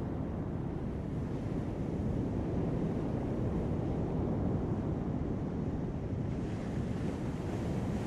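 Heavy surf breaking on a sand beach: a steady low rumble of waves, with the hiss of a breaking wave building from about six seconds in.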